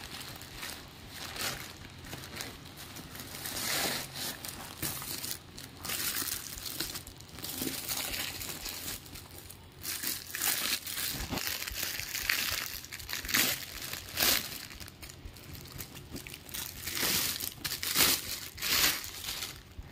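Plastic packaging crinkling and rustling in irregular bursts as hands tear open a polythene courier mailer and handle a handbag's clear plastic wrap.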